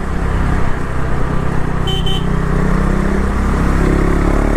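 KTM 390 Duke's single-cylinder engine running at low road speed under wind and road noise, with a short horn beep about two seconds in. Near the end the engine note rises as the bike accelerates.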